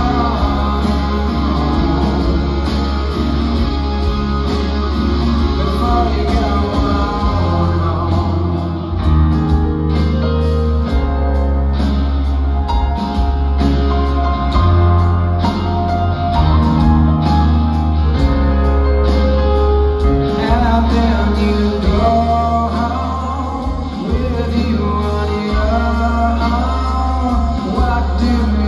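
Rock band playing live, heard from among the audience: a man singing over electric guitars, bass guitar and drums, with heavy, continuous bass.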